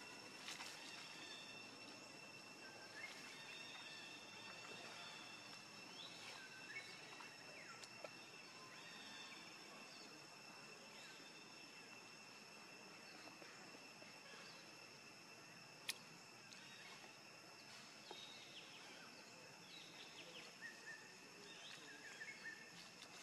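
Near silence: faint outdoor background with a steady high-pitched drone, scattered faint short chirps, and one sharp click about 16 seconds in.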